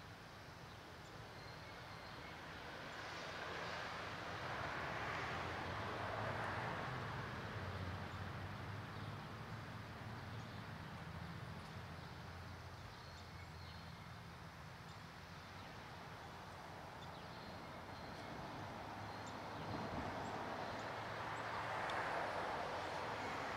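Outdoor park ambience: a steady low hum with a broad rushing noise that swells up and dies away twice, and a few faint high chirps.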